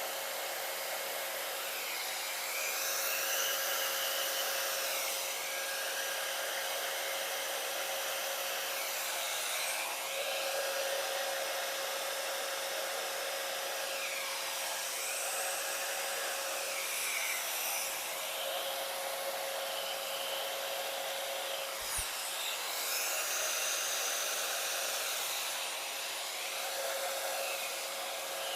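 Handheld blow dryer running steadily with a constant motor whine, its rushing air swelling and fading in sweeps every few seconds as it is moved back and forth, blowing wet acrylic paint across a canvas.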